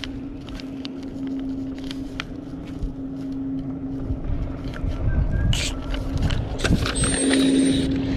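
Wind rumbling on the microphone over a steady low hum, the rumble growing stronger from about halfway. Scattered light ticks and scratches come from a ballpoint pen writing on a paper catch card.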